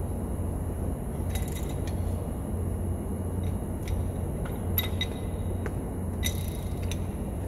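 A few sharp metallic clinks and taps, one about a second in and a cluster near the middle, over a steady low hum.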